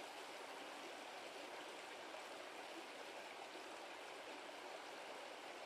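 Brook water running steadily, a soft, even rush.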